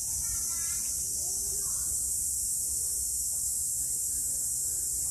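Insects calling in a steady, high-pitched chorus that holds level throughout, with a low rumble underneath.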